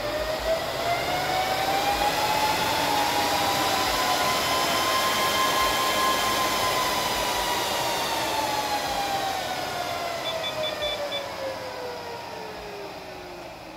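Rack server's cooling fans spinning up at power-on with a loud rising whine over a rush of air, then slowing down, the whine falling and the noise fading over the last several seconds as the fans settle after start-up.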